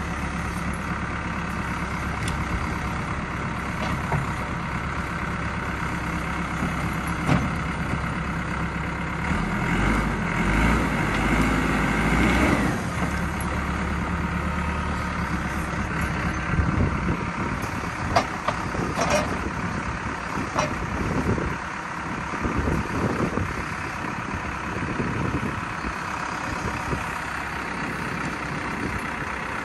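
Caterpillar backhoe loader's diesel engine running under load as it pushes a big oak log. The engine works harder for a few seconds about ten seconds in, followed a few seconds later by a run of sharp knocks and clanks from the machine and log.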